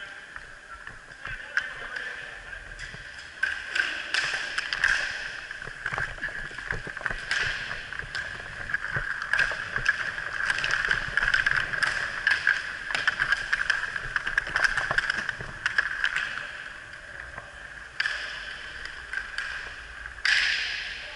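Inline skate wheels rolling over a plastic sport-court floor: a steady whirring hiss with frequent clicks and taps from wheels, sticks and puck, louder in stretches while the skater moves fast.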